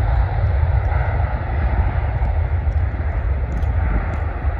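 Jet cargo plane's engines at takeoff thrust, a steady rumbling roar that slowly fades as it lifts off and climbs away.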